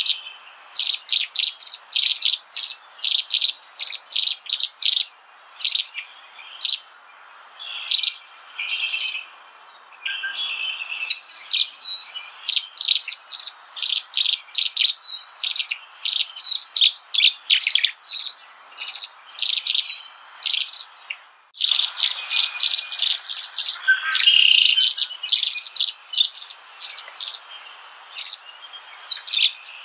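Small birds chirping and tweeting in quick, repeated high calls, some as short falling notes, with a brief sudden drop-out about two-thirds of the way through before the chirping resumes.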